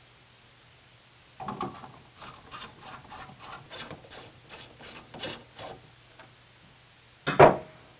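Hand ratchet wrench turning out a fastener on a snowblower's control panel, a run of short, even rasping strokes at about three a second. A single loud knock follows near the end.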